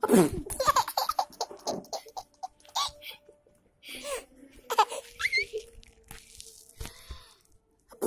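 A toddler laughing and squealing in short bursts, with a few light clicks between.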